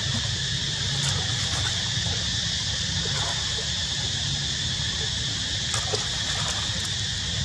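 Steady high-pitched drone of insects over a low rumble, with a few faint ticks about a second in and near six seconds.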